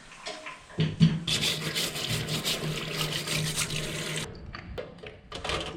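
Large sea snails being rubbed and rinsed under a running tap. The water runs for about three seconds with a steady hum, then shuts off suddenly, leaving scattered knocks and scrapes of shell.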